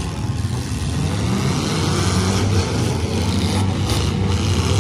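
Several four-cylinder demolition derby cars running together, engines revving up and down. A few sharp knocks come near the end.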